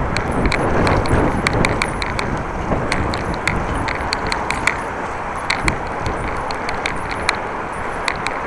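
Bicycle ride in strong wind: wind buffeting the microphone over tyre and road noise, with a run of short, sharp clicks every fraction of a second.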